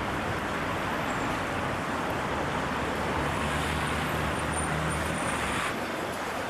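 Street traffic noise: a steady wash of passing cars, with a nearby engine louder in the middle. The sound turns duller shortly before the end.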